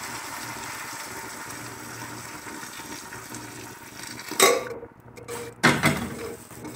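Hot water poured from a kettle into an aluminium pressure cooker over browned pork ribs, a steady stream for about four seconds, followed by two loud knocks as the kettle is put down on the stove.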